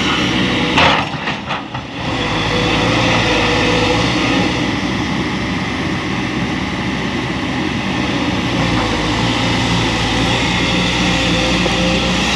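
Excavator's diesel engine running steadily under load, with a short burst of several knocks about a second in.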